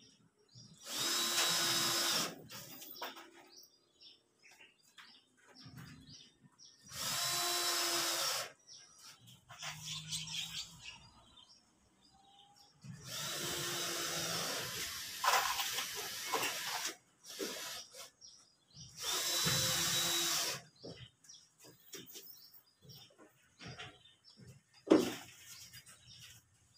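Cordless drill driving screws through ceiling panels into a light-steel ceiling frame: four short runs of the motor, each about a second and a half, the third one longer. A single sharp knock comes near the end.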